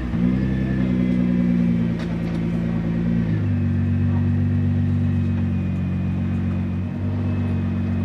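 A performance car's engine idling steadily just after starting up, its idle settling slightly lower about three and a half seconds in.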